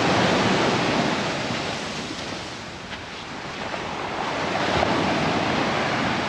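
Ocean surf washing over a stony shore, the rocks clattering and grinding in the moving water. The surge eases off about halfway and builds again a second or so later.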